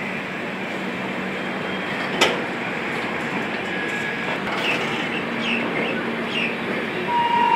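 Coaches of the Swarna Jayanti Superfast Express rolling past as the train departs: a steady rumble of wheels on rail, with one sharp clack about two seconds in and a few short high squeaks a little later. A horn starts to sound near the end.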